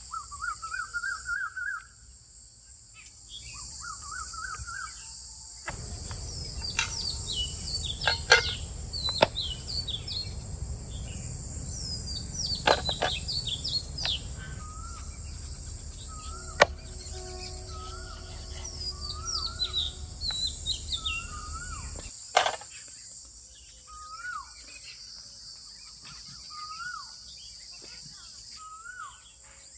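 Outdoor ambience: a steady high insect buzz with birds chirping over it again and again. Through the middle, a few sharp knocks of a cleaver chopping bone-in meat on a wooden block.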